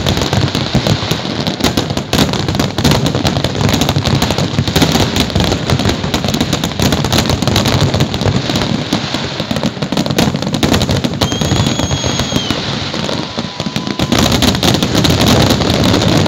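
Fireworks display: shells bursting overhead in a dense, rapid run of crackling bangs that never lets up, like a machine gun.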